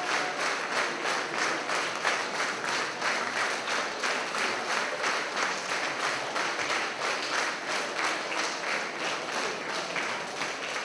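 Audience applauding in unison: steady rhythmic clapping, about three claps a second.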